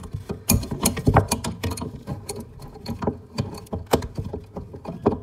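Pliers gripping and turning a mounting nut on a single-lever faucet's threaded stud, loosening it: irregular metallic clicks and scrapes, with a few sharper knocks.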